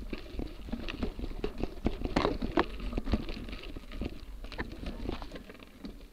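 Tyres of a Motobecane Fantom Cross gravel bike rolling over a loose dirt and gravel road: an irregular crackle and clicking of stones under the tyres over a low rumble, easing off toward the end.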